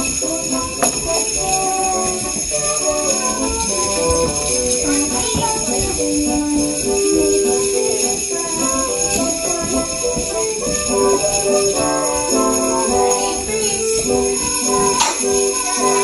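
Sleigh bells jingling continuously over music with a melody of changing notes.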